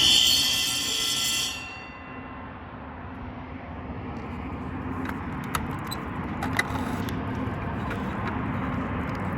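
Fire alarm bell of an old Monaco fire alarm system ringing loudly and then cutting off about a second and a half in, its ring dying away. After it, a steady low background rumble with a few light clicks.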